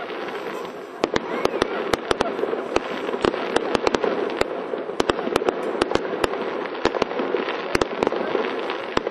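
Fireworks display: a dense, steady run of sharp pops and crackles, several a second, over a continuous wash of noise from the bursting shells.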